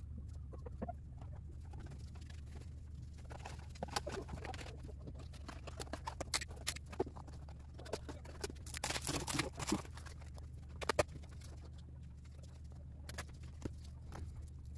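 Scattered rustling, light taps and clicks of gift items and packaging being handled and arranged, with a busier patch of rustling about nine seconds in, over a steady low hum.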